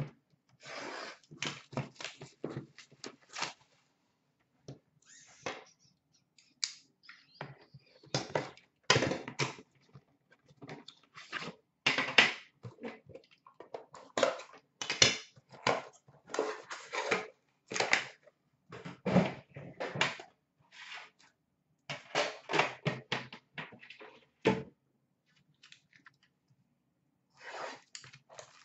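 Hands unboxing trading-card tins: irregular rustling and scraping of cardboard packaging, with clicks and knocks as the metal tins are handled and set down on a glass counter. One sharper knock comes near the end.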